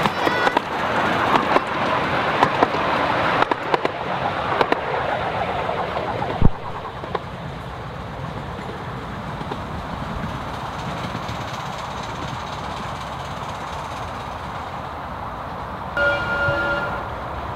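A 7¼-inch gauge miniature steam train rolling past on the track, its wheels clicking over the rail joints. The rumble fades as the train runs away, with a single sharp knock about six seconds in. Near the end the distant locomotive gives a short whistle.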